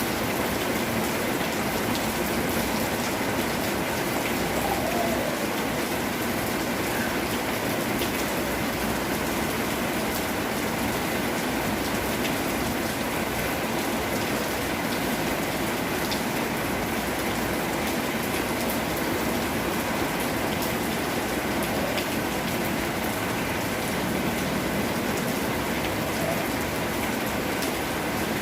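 Steady rain falling on surfaces, an even hiss with scattered individual drops ticking.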